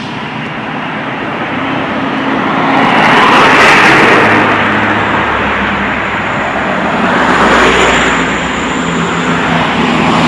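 Road vehicles passing close by on a road; the engine and tyre noise swells and fades twice.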